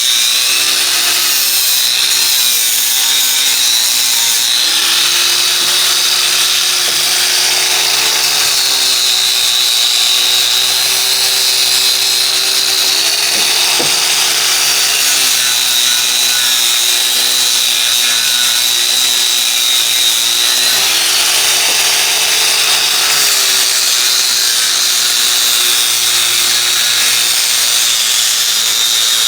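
Angle grinder running continuously on steel, its motor pitch sagging and recovering several times as it is pressed into the work and eased off.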